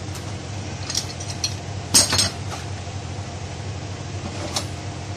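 Scattered metal-on-metal clinks from a Toyota Passo steering assembly being worked by hand in a steel bench vise, with one loud clank about two seconds in and another clink near the end, over a steady low machine hum.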